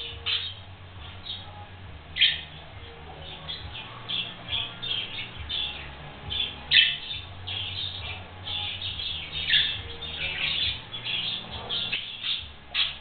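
Budgerigars chirping and squawking in quick, irregular short calls, with a few louder calls about 2, 7 and 9.5 seconds in.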